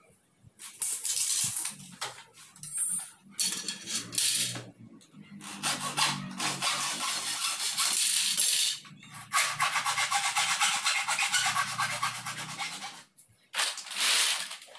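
A hacksaw cutting through an aluminium frame profile: runs of rapid back-and-forth rasping strokes, the longest lasting several seconds, broken by short pauses.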